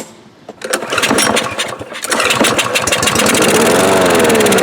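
Powersmart lawn mower's overhead-valve engine firing on starting fluid, catching about a second in and then running loudly, its pitch falling near the end. It runs only on the starting fluid, which the owner takes as a carburetor needing cleaning.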